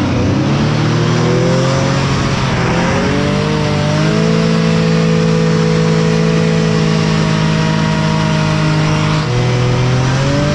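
SCAT hovercraft's engine and fan running under throttle while the craft flies, still flying well. The pitch climbs in two steps over the first few seconds, then holds steady, dips briefly near the end and climbs again.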